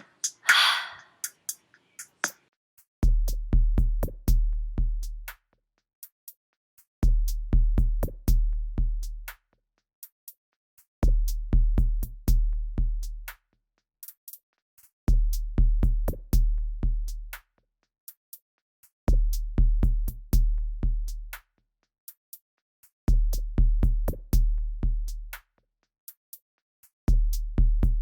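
Sparse electronic drum-machine beat: a cluster of deep bass-drum hits about every four seconds, with sharp clicking hits between them.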